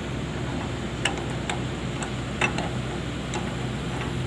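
Sharp metallic clicks and taps, a handful spread over a few seconds, as a wrench works the hydraulic hose fittings on an excavator's arm while the bucket is swapped for a hydraulic breaker. Under them runs the steady hum of the excavator's diesel engine idling.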